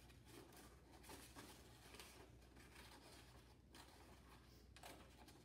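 Faint scissors cutting through a sheet of paper, with soft irregular snips and paper rustling over low room hum.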